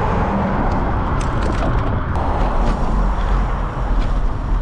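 Steady wind rumble on a bicycle-mounted camera's microphone, with road noise from riding along a paved street and a few faint ticks between about one and two seconds in.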